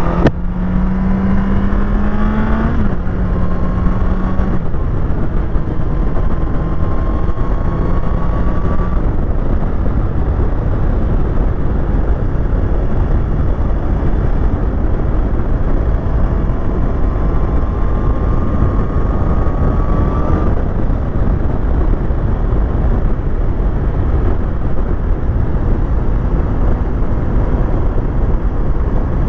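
Heavy wind noise buffeting a helmet-mounted microphone at riding speed, a dense low rumble that nearly buries a sport motorcycle's engine; the rider puts the noise down to wind hitting the helmet rather than getting inside it. The engine is heard rising in pitch with an upshift about three seconds in, and twice more later as fainter rising tones under the wind.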